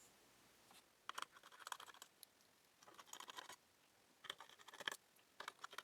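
Small Phillips screws being backed out with a screwdriver: several short bursts of quick, scratchy clicks and scraping.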